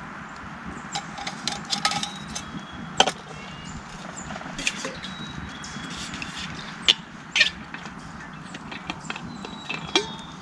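Scattered clicks, knocks and light clinks of camp gear being handled over a steady hiss, with a few brief high chirps.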